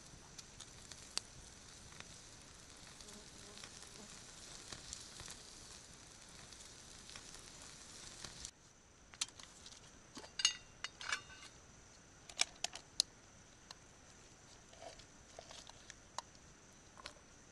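Steady faint outdoor hiss for the first half. After a sudden drop in the background about halfway through, a scatter of sharp clinks and taps, some ringing briefly, as a black metal camping pot and its wire handle are handled and tipped to turn out rice.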